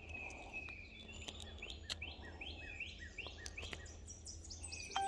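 A songbird singing a run of repeated whistled notes, each sweeping down in pitch, two to three a second, over a steady low outdoor rumble. A steady tone starts abruptly at the very end.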